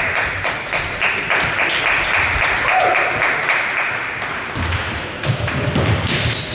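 Scattered hand clapping from a small crowd in a sports hall, fading out after about four seconds. Near the end come short high squeaks, like basketball shoes on the wooden court floor.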